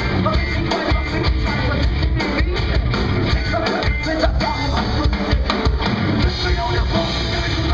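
Nu metal band playing live: electric guitars, bass and drum kit running loud and continuous, heard from the audience.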